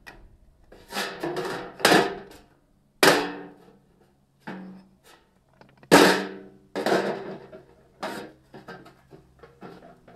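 Steel tongs clanking on a metal ingot mould and tray as a freshly cast aluminium ingot is knocked out of the upturned mould. There is a string of sharp, ringing metal knocks, the loudest about six seconds in, followed by lighter clinks.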